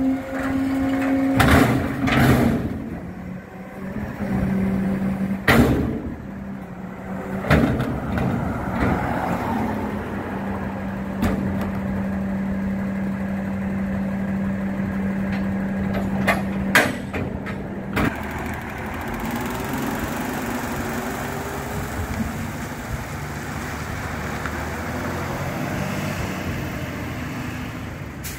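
Rear-loader garbage truck emptying a container with its hydraulic lifter: a steady hum under several sharp metal bangs as the container knocks against the lifter and hopper. In the last third the truck's diesel engine runs and rises in pitch as it pulls away.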